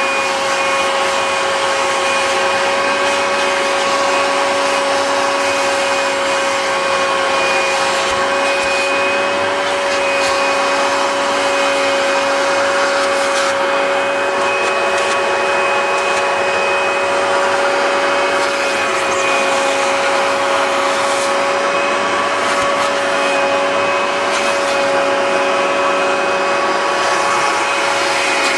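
Hoover Junior 1346A upright vacuum cleaner running steadily, its motor giving a constant whine over a rushing hiss of air, as it vacuums along the edge of a chair.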